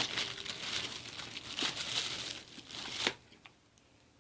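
Wrapping around sliced provolone cheese crinkling and tearing as it is opened and the deli slices are peeled out; it stops abruptly about three seconds in.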